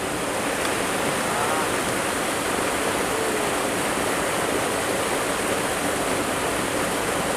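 River water rushing steadily, an even, unbroken noise with no clear events.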